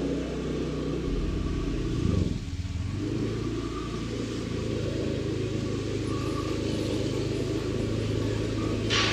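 Steady low engine rumble of a slow-moving vehicle, with a short loud noisy burst near the end.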